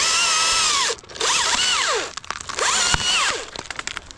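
Chainsaw revving up and down in three short bursts of about a second each, cutting through a small branch.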